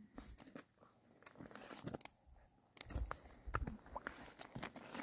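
Faint, scattered crunching footsteps on snow-covered lake ice, busiest about three seconds in.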